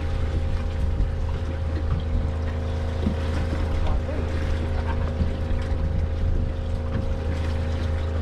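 Boat engine running steadily, an even unchanging hum.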